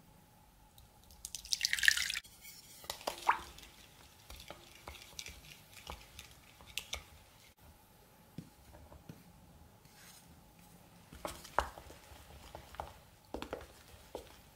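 Kefir poured from a glass into a bowl of beaten egg, a short splashing pour about a second in. Scattered light clicks and taps of a knife and a wooden spoon against the bowl follow as flour is scraped in and stirred.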